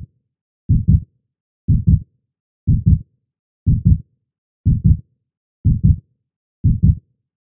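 Heartbeat sound effect: steady double "lub-dub" thumps, about one a second, low and loud with silence between beats.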